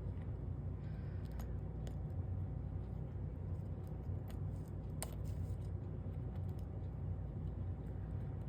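Steady low hum with scattered faint clicks and taps of glass pieces and reinforcement wire being handled and shifted in a foiled stained-glass panel.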